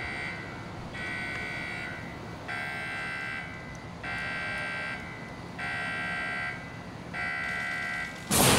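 Crash-test sled warning buzzer beeping in even pulses, about six beeps each just under a second long, spaced about one and a half seconds apart. Near the end the sled fires with a sudden loud bang that rings off briefly.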